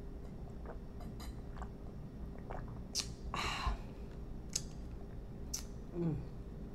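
Close-miked mouth sounds of drinking and chewing: swallowing, wet lip and tongue clicks and a few sharp clicks, with a short breathy rush about three and a half seconds in, over a faint steady hum.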